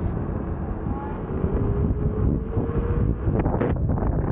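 Wind rushing over the microphone with road noise while riding an electric unicycle, and a faint whine slowly rising in pitch. A few sharp clicks come near the end.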